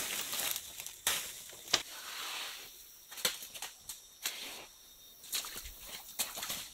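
Footsteps pushing through jungle undergrowth and leaf litter: leaves rustling and brushing past, broken by irregular sharp cracks and snaps.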